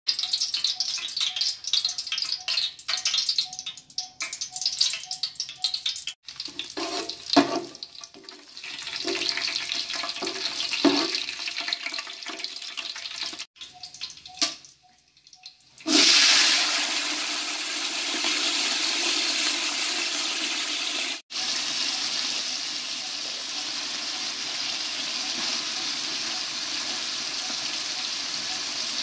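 Hot oil sizzling and crackling as whole spices fry in a large aluminium pot, with a metal slotted spatula scraping and knocking against the pot. About halfway through, sliced onions go into the oil with a sudden loud hiss that settles into a steady sizzle.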